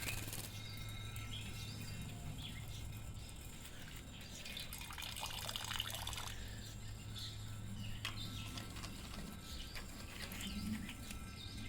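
Green araçari just out of its bath, with water dripping and splashing and scattered short, sharp sounds. A denser flurry comes about five seconds in. A steady low hum runs underneath.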